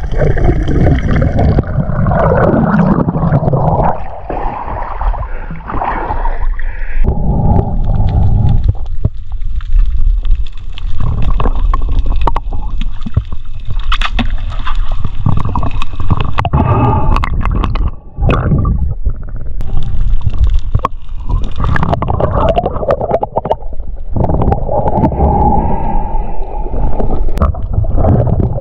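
Underwater sound picked up by a free-diver's action camera: water rushing and gurgling against the housing in uneven surges as the diver swims, with many sharp clicks scattered throughout.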